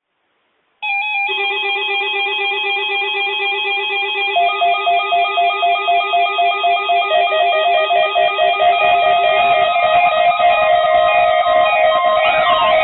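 Several NOAA weather radio receivers sounding their alarms at once, set off by the weekly National Weather Service warning alarm test. Overlapping rapid electronic beeping tones start about a second in, with more alarms joining a moment and a few seconds later.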